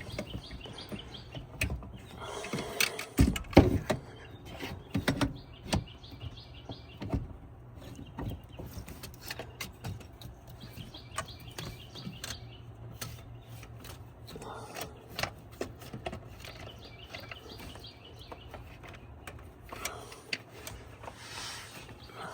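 Metal clinks and knocks of a coil pack bracket and hand tools being handled and fitted on a V8 engine, irregular and loudest a few seconds in. Birds chirp in the background.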